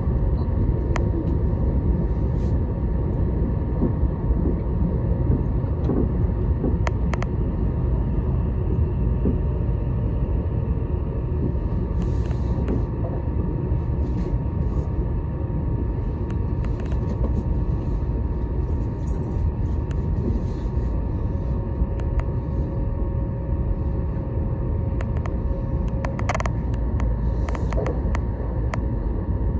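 Electric commuter train running, heard from inside the carriage: a steady low rumble with a faint steady tone over it and occasional light clicks.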